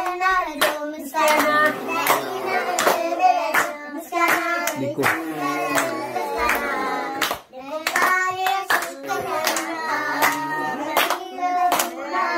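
Children singing a song while hands clap along in an irregular beat, in a small room.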